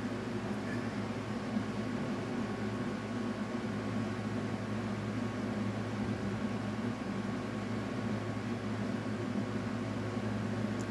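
Steady low hum with a constant hiss, unbroken throughout.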